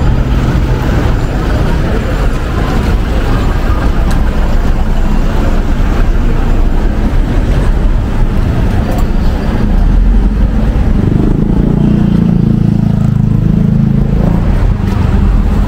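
Street traffic: the steady mixed noise of car engines and tyres on the road, with a deeper engine rumble swelling for a few seconds past the middle as a vehicle passes close.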